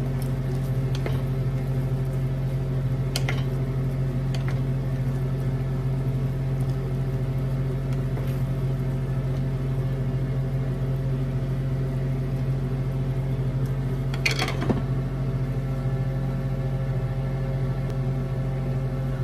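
Wooden spatula stirring in a stainless steel skillet, a few light knocks on the metal, then a clatter about 14 seconds in as the glass lid is set on the pan. Under it a steady appliance hum runs throughout.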